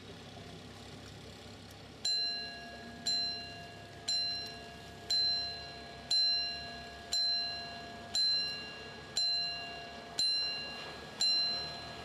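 Warning bell at a canal opening bridge, striking about once a second from about two seconds in, each strike ringing and dying away. It signals that the road barrier is coming down before the bridge opens for lock traffic.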